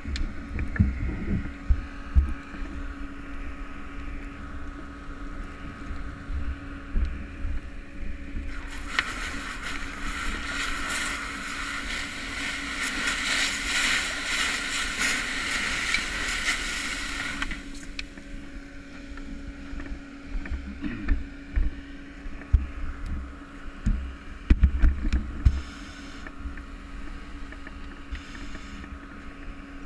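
Fire hose nozzle spraying onto a burning pickup truck: a loud, even hiss for about nine seconds in the middle, over a steady low mechanical hum. Scattered low knocks and wind buffeting on the helmet-mounted microphone.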